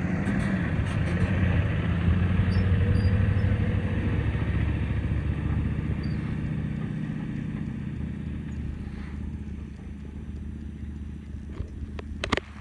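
A 1994 Chevy 3500's 6.5-litre turbo-diesel V8 pulling a trailer loaded with about 18,500 lb of round hay bales, its low rumble fading steadily as the rig moves away. A few sharp clicks near the end.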